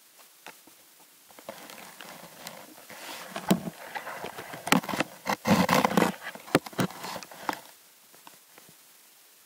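Scraping and rustling right against a cat-worn camera as the cat moves, with many sharp clicks and knocks. It builds about a second in, is loudest in the middle and dies away near the end.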